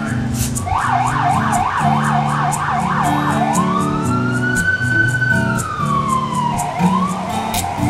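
Emergency-vehicle siren over a music track with a steady beat and bass line: the siren yelps rapidly up and down for about two and a half seconds, then switches to a slow wail that rises and falls, and starts rising again near the end.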